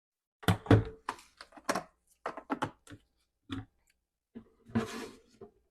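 Kitchenware being handled for straining juice: a series of short knocks and clatters, then a longer, noisier sound near the end.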